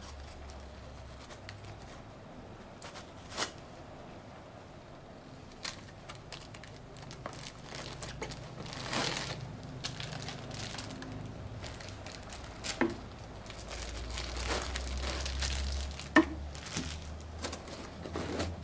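Plastic packaging bags crinkling and rustling as items are handled and lifted out of a cardboard box, with scattered light knocks and clicks; one sharp knock near the end is the loudest sound.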